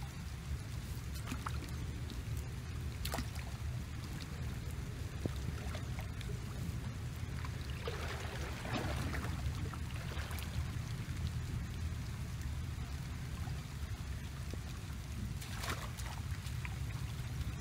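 Water splashing and sloshing as a person wades into a shallow muddy ditch, loudest about halfway through and again near the end, over a steady low rumble of wind on the microphone.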